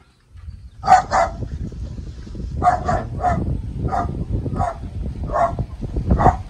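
A dog barking repeatedly, about nine short barks: a quick pair about a second in, then single barks at irregular gaps of half a second to a second. A low rumble runs underneath on the microphone.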